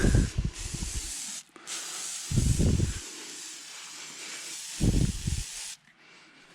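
Aerosol can of WD-40 spraying in a long hiss, broken once briefly about a second and a half in and stopping shortly before the end. Three short, low thumps come through the hiss.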